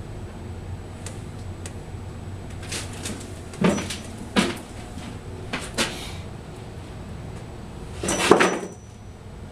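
Several sharp knocks and clunks, the loudest a short clatter near the end, over a low steady hum.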